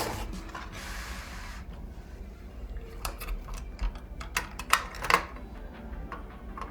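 Scattered sharp clicks and light knocks of computer parts and case panels being handled and fitted, most of them a few seconds in.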